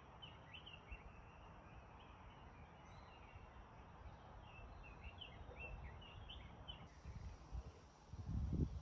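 Small forest birds chirping in quick, short, high notes over faint outdoor background noise. Near the end a louder low rumble sounds on the microphone.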